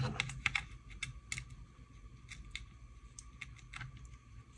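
Scattered light clicks and taps of small metal thumb screws and plastic washers being handled and fitted to a CPU waterblock's mounting, thickest in the first second and a half, then sparser.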